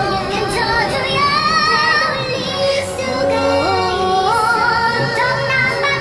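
Female voices singing sustained, wavering notes in a Korean-language musical duet over an orchestral accompaniment, with a line climbing step by step in the middle. The voices carry an added reverberant 'angel' effect.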